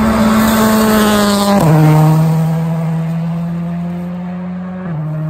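Rally car engine at high, steady revs, passing by; its note drops sharply about a second and a half in, then holds lower and drops again near the end.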